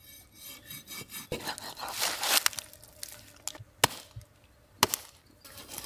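Heavy chopping knife cutting through a large fish's body on a wooden stump: rasping cuts through flesh and bone, with three sharp knocks as the blade hits the wood, the loudest two near the end.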